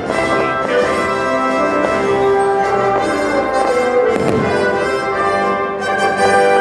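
Orchestral music led by brass (trumpets, trombones and horns), sustained notes. This is the soundtrack of a patriotic 4th of July fireworks show.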